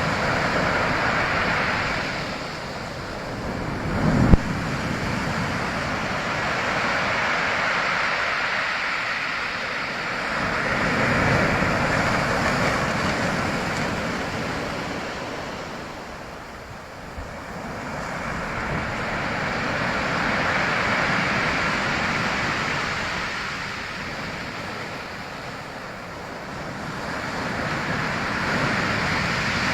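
Ocean waves breaking and washing in, the rushing noise swelling and fading roughly every eight to ten seconds. A brief low thump about four seconds in.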